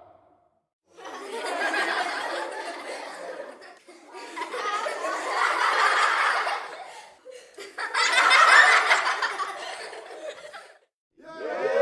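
Studio audience laughing, heard as three separate short clips of about three seconds each, one after another, each fading out.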